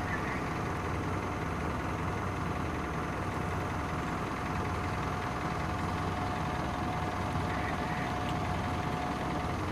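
Truck engine running steadily, a low even hum with a thin steady whine above it that stops just before the end.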